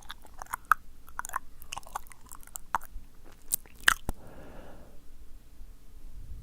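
Close-up wet mouth sounds from a man's mouth: rapid, irregular tongue clicks and lip smacks, followed about four seconds in by a short soft breath of air.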